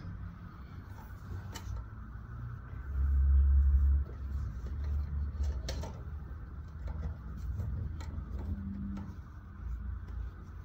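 Juita JT20U-63Z industrial zigzag sewing machine running in short bursts of stitching, loudest about three seconds in. Scattered sharp clicks come in between as the fabric is handled.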